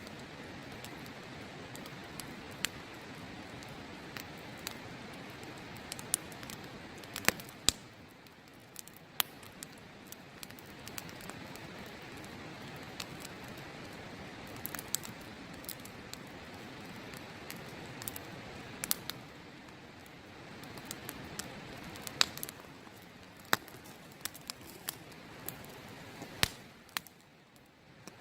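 Open wood campfire crackling, with sharp irregular pops and snaps over a steady rushing river. The rushing drops away briefly near the end.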